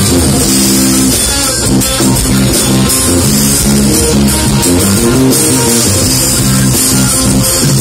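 Live band music played loud through stage speakers: electric guitars, bass guitar and drum kit, with a steady bass line and cymbals.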